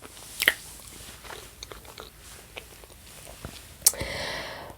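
A person biting and chewing food close to the microphone, with many small mouth clicks: a bite about half a second in and a sharper click just before four seconds.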